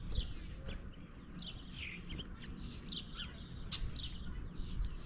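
Small songbirds at a feeder chirping over and over: many short chirps that fall in pitch, coming in quick succession, with a few faint clicks and a steady low rumble underneath.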